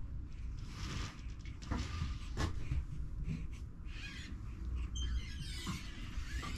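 A newborn baby's fussy squawks and grunts: several short ones, the longest near the end.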